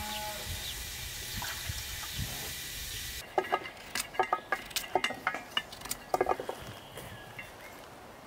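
A steady hiss for about three seconds. It then cuts off and gives way to a small kitchen knife peeling raw potatoes by hand: a quick, irregular run of short sharp scrapes and clicks as the blade cuts through the peel.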